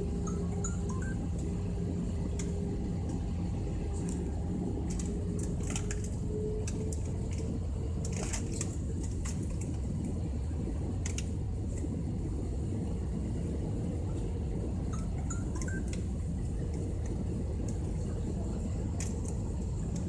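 Airliner cabin noise on approach: a steady rumble of engines and rushing air, with a faint engine tone that rises slightly in pitch around six to eight seconds in. Scattered light clicks and rattles from the cabin.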